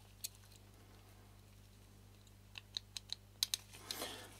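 Light metal clicks from the Mamiya-Sekor C 127mm lens's housing and shutter assembly being handled in gloved hands as the part is taken off. One click comes near the start and a quick run of small clicks about two and a half seconds in, followed by a brief soft rustle near the end.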